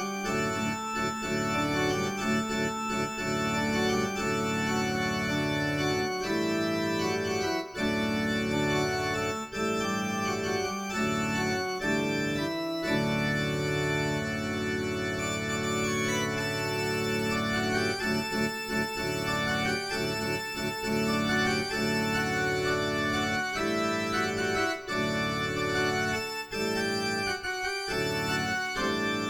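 Yamaha PSR-E203 portable keyboard played on an organ voice: held chords, changing about every second.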